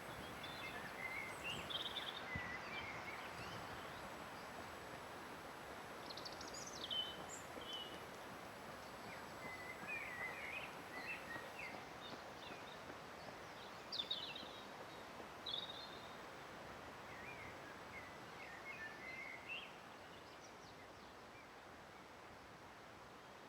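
Wild birds singing in scattered short chirps and trills over a faint steady rushing hiss; the birdsong stops and the hiss drops a little near the end.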